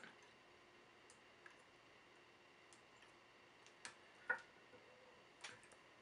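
Near silence with a few faint clicks and ticks, the sharpest a little past four seconds in: fingers and tying thread being handled while hand whip-finishing the head of a fly in a fly-tying vise.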